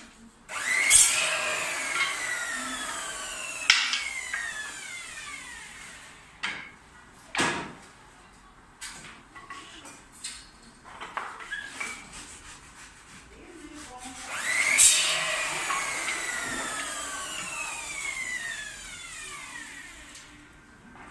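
An electric power tool started twice, each time running briefly and then winding down with a falling whine over several seconds. There are sharp knocks in between.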